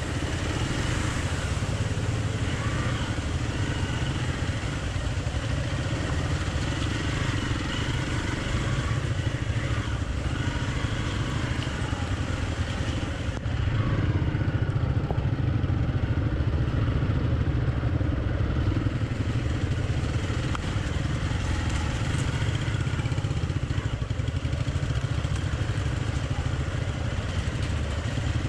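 Hero XPulse 200 motorcycle's single-cylinder engine running steadily as the bike is ridden along a dirt trail.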